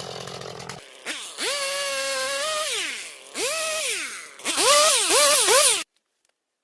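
Chainsaw revving while cutting wood in three bursts, each rising and falling in pitch, the last with quick up-and-down revs; it cuts off suddenly near the end.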